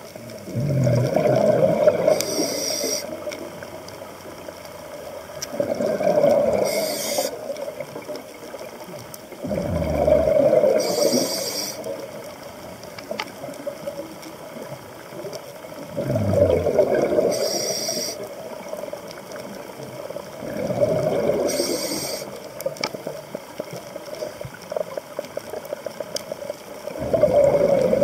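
A scuba diver breathing through a regulator underwater, about every five seconds: a gurgling rush of exhaled bubbles, then a short hiss as the next breath is drawn.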